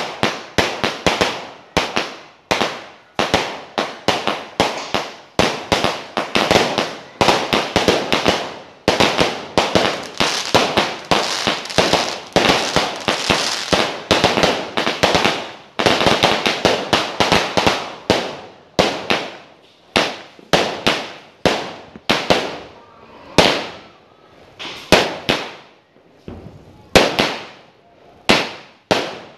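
A firework cake, four 36-shot cakes linked to fire in sequence, shooting a rapid string of sharp bangs several a second. The shots come thickest around the middle and thin to single bangs about a second apart near the end.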